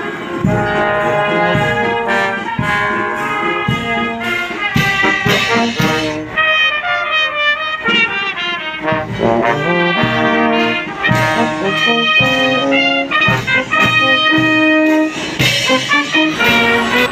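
Marching brass band playing a tune on horns over a steady drum beat. The band stops near the end.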